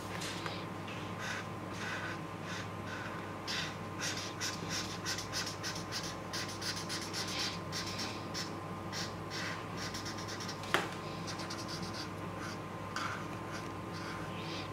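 Felt-tip marker scratching across paper in quick back-and-forth colouring strokes, several a second, busiest in the middle, over a faint steady hum. A single sharp click comes near the end.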